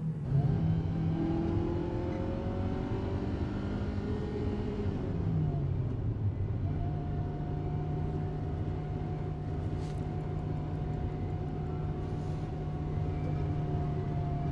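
Car engine driving along, its note rising a little at first, dropping about five seconds in like a gear change, then holding a steady drone at cruising speed.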